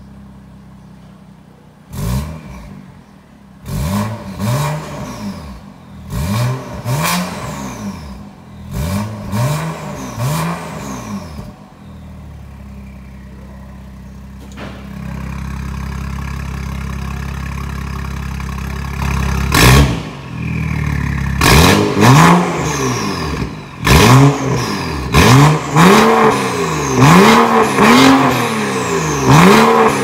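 BMW 740i (F02) twin-turbo inline-six running through a catless downpipe and valved cat-back exhaust, idling and then revved in a series of short throttle blips, each a quick rise and fall in pitch. After a steadier, deeper stretch and a sharp crack about twenty seconds in, a second, louder run of blips follows.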